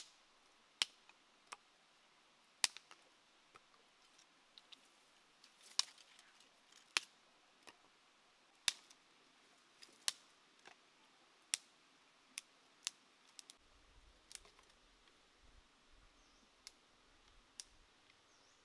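Machete blade striking a wooden chopping board while chopping garlic: single sharp clicks at an uneven pace, roughly one a second, some louder than others.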